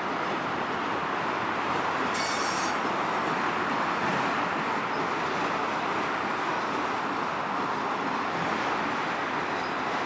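Canadian Pacific freight train of autorack cars rolling past, a steady noise of wheels and car bodies on the rails, with a brief high hiss about two seconds in.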